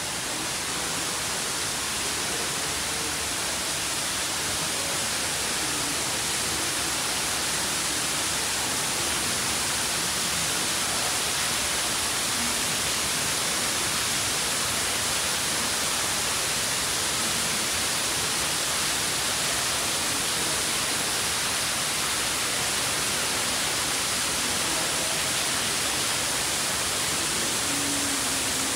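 Steady rushing of water from a small artificial garden waterfall: an even hiss with no breaks, slightly louder about a second in.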